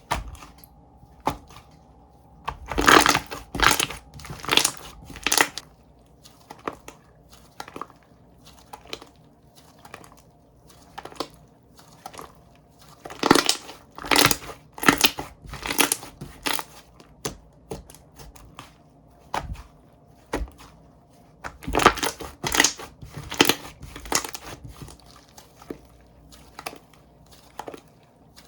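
Slime being squished and pressed by hand, giving crackling clicks and pops in three runs of a few seconds each, with single clicks between.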